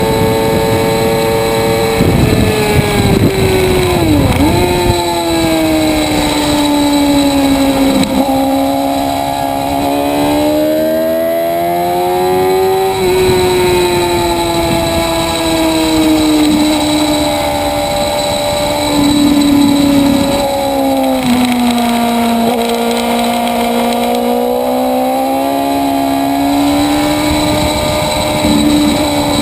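Motorcycle engine at speed on a race track, its pitch climbing under acceleration and dropping sharply on the downshifts into corners, repeatedly.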